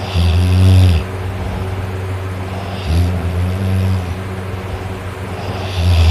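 A person snoring: three low, rasping snores about three seconds apart, each lasting about a second, over a steady low hum.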